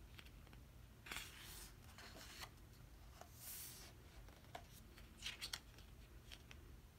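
Faint paper handling: the glossy pages of a photobook rustling as a page is turned, with a few soft swishes and light ticks.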